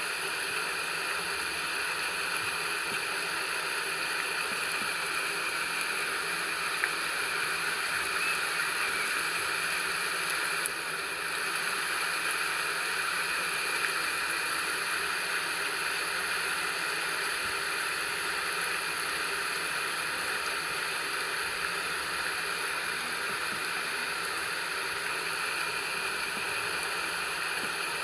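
Steady rain, an even hiss with a brief slight dip about ten seconds in.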